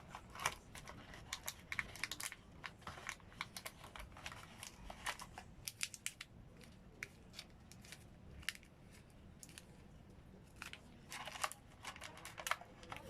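Irregular small clicks and taps with light crinkles, the sound of hands handling a new smartphone and its plastic packaging. The clicks thin out in the middle and come thicker again near the end.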